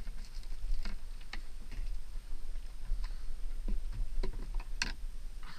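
Irregular light clicks and taps, the sharpest near the end, over a low steady rumble.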